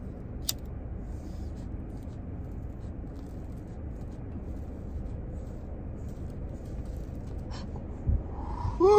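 A lighter clicks on about half a second in, then a steady low hiss with faint scattered crackles as two fruit-wrap blunts are held in the flame and lit. Near the end come two dull thumps and a short voiced sound.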